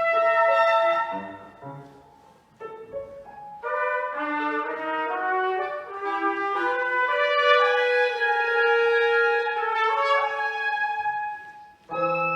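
Contemporary chamber music for trumpet, clarinet and piano: held wind notes in overlapping lines, with the trumpet most prominent. The sound dies away to a brief near-pause about two seconds in, then the instruments come back in and sustain long notes together.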